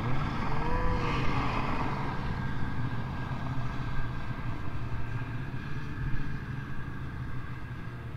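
Snowmobile engines running, a steady low rumble, with a passing sled swelling and then fading over the first couple of seconds.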